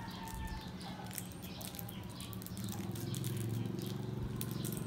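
Small Mentos candy wrappers being picked open by hand, crinkling in short, scattered crackles. A low steady hum runs underneath and grows louder about three seconds in.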